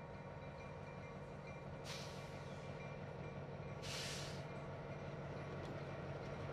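Diesel switcher locomotive engines running steadily as the locomotives roll slowly closer, growing gradually louder. Two short bursts of air-brake hiss come about two and four seconds in, the second longer.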